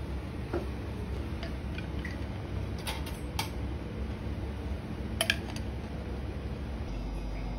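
Light clinks of a metal spoon against a porcelain plate, two about three seconds in and a sharper pair just after five seconds, over a steady low hum.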